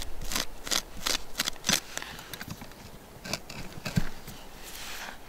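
Metal tent peg worked by hand into gravelly dirt: a quick run of short scraping clicks in the first two seconds, a few more knocks after, and a longer scrape near the end.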